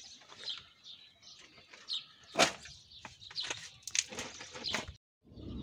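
Small birds chirping now and then, over scattered sharp clicks and knocks. Near the end the sound drops out briefly and a low rumble begins.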